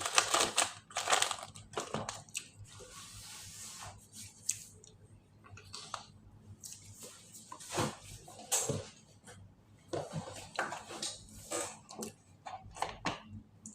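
Crinkling and crunching of a midnight snack: a snack packet being handled and crunchy food bitten and chewed, in irregular crackles.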